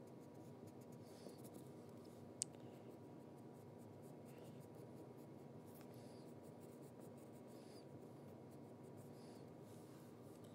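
Faint pencil strokes scratching on paper during shading touch-ups, over a low room hum, with one sharp tick about two and a half seconds in.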